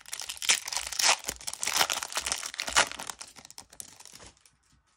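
Foil trading-card booster pack being torn open, its wrapper crinkling and crackling in quick dense strokes for about four seconds, dying away near the end.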